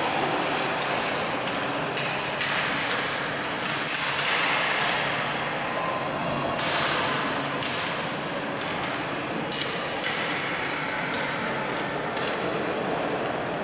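Players' sticks and rubber boots tapping and scraping on the ice in a boot-hockey game: irregular clacks and scuffs over a steady hiss, echoing in a large rink.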